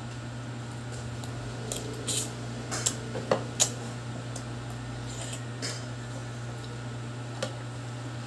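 A metal spoon clinking and scraping against a bowl as a child scoops noodles: several irregular clinks, the loudest a little over three seconds in. A steady low hum runs underneath.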